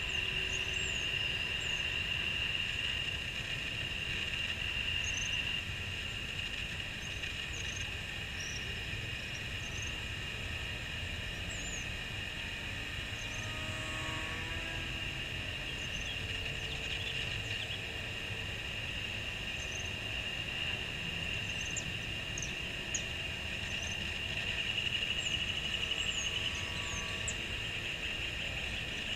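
Micro RC airplane's small electric motor and propeller giving a steady high-pitched whine that swells and fades as the plane flies around, loudest near the start and again a few seconds before the end. Short high bird chirps come and go over a low rumble of wind.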